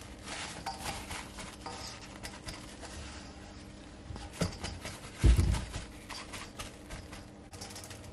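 Paper towel rustling and dabbing against wet whole tilapia in a stainless steel bowl, with scattered soft clicks of handling. A single dull thump about five seconds in.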